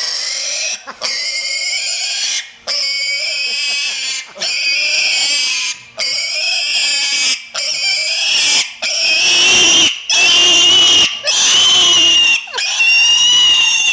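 Young white domestic pig squealing shrilly over and over, about ten long high-pitched squeals of a second or so each with short breaths between, louder in the second half. It is squealing in protest at being picked up and carried in a man's arms.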